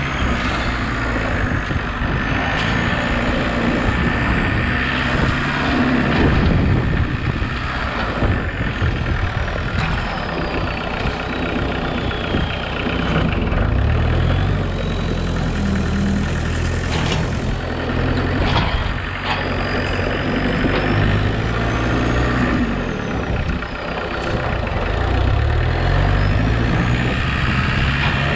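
Engine of a homemade 4x4 tractor running while it drives, its pitch climbing and dropping several times as the throttle changes. A thin high whine rises and falls over it.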